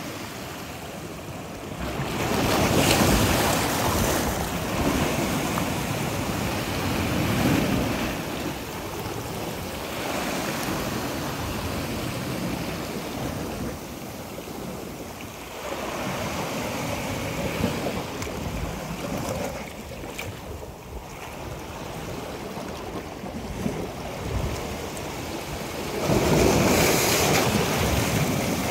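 Sea waves washing in over a rocky shore in repeated surges, the loudest as a wave floods over the rocks near the end.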